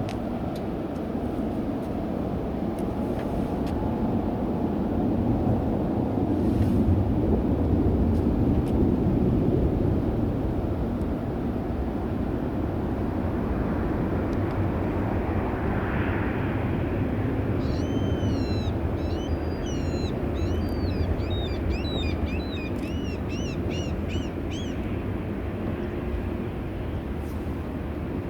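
Airliner engines rumbling steadily as a plane passes, swelling to their loudest early on and then easing. Partway through, a small bird chirps rapidly over the engine noise for several seconds.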